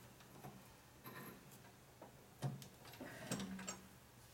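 A few faint metallic clicks and taps, spaced apart, as a chuck key is worked in a metal lathe's four-jaw chuck.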